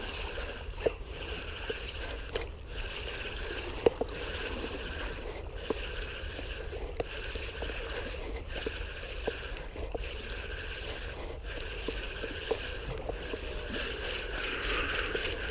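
Small waves lapping and washing against breakwater rocks, swelling and dropping away in pulses about once a second, with a few light ticks.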